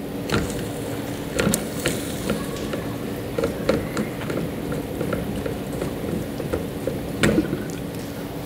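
A plastic PVC pipe union being unscrewed and pulled apart by hand, giving scattered clicks and knocks of plastic, the loudest near the end. Under it the reverse-osmosis plant's pump hums steadily as it runs.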